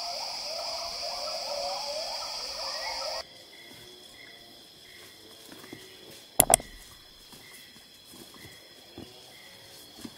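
Rainforest ambience: a steady insect drone under a busy run of rising calls for about three seconds, then a sudden change to a quieter insect hum with a soft chirp repeating about twice a second. Two sharp cracks a little past halfway.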